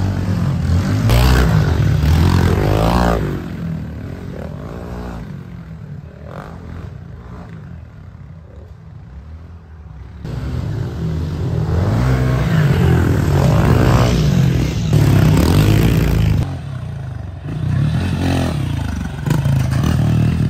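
Dirt bike engines revving up and down, the pitch rising and falling over and over as the bikes ride the jumps. Loud for the first few seconds, fading away through the middle, then loud again for the second half.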